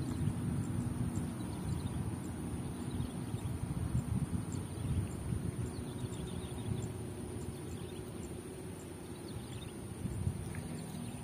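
Wind buffeting the microphone, an uneven low rumble, with a thin steady high tone and a few faint short chirps above it.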